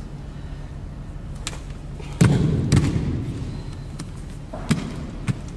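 A few dull thumps and slaps of karate partner work, arms striking arms and bare feet on a sports-hall floor, with the loudest about two seconds in, trailing a short echo.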